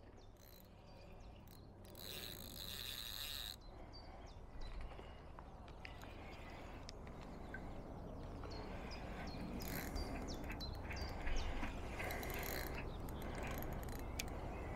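Quiet lakeside ambience with faint, scattered bird chirps and a brief patch of hissy noise about two seconds in.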